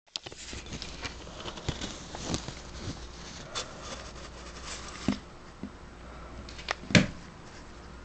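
Handling noise on the recording device: rubbing and irregular light clicks, with a sharp knock about seven seconds in.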